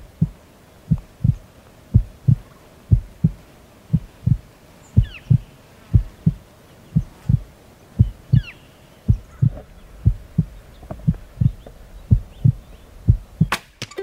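Heartbeat sound effect: a steady double thump, lub-dub, about once a second. A single sharp snap near the end.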